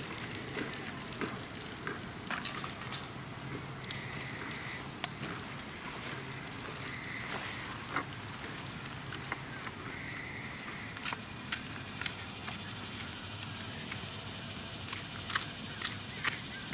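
Disc golf basket chains jangling briefly about two seconds in as a disc strikes them, over a steady hiss of insects, with scattered light clicks through the rest.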